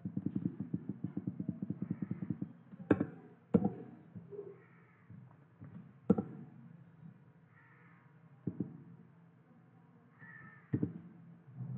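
Computer keyboard typing: a quick run of keystrokes for about two seconds, then single key presses a few seconds apart. Faint animal calls repeat about every three seconds in the background.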